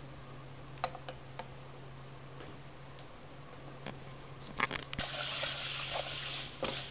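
Thin vermicelli being toasted in olive oil in a pan until it browns: a few light taps of a wooden spoon on the pan, then about five seconds in the spoon stirs and a steady sizzle of frying sets in.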